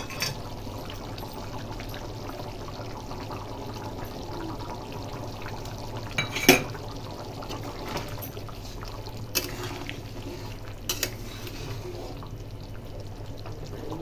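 Curry gravy bubbling at a steady simmer in a karahi, with a metal ladle knocking against the pan a few times while stirring; the loudest knock comes about six and a half seconds in.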